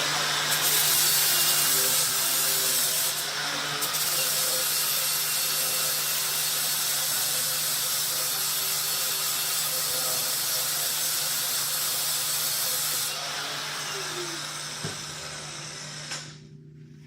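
Angle grinder running and grinding metal, a steady harsh hiss that eases off about 13 seconds in and winds down, stopping shortly before the end.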